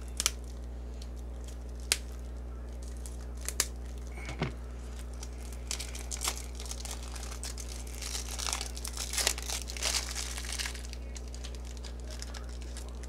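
Foil booster-pack wrapper of Yu-Gi-Oh cards crinkling and tearing as it is handled and opened, over a steady low hum. A few sharp clicks come first, then a dense stretch of crinkling in the second half.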